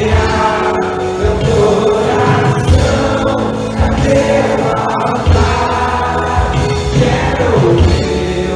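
Gospel-style music with group singing over a steady bass beat.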